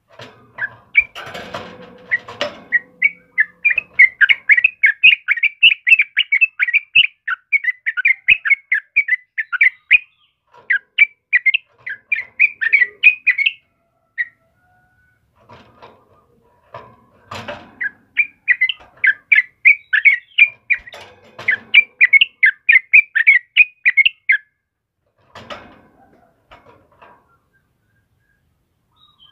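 Yellow-vented bulbul (trucukan) singing energetically in two long runs of rapid, bubbly notes, the first about a second in and lasting some thirteen seconds, the second shorter. Brief rustling strokes, like wing flaps, fall between the runs.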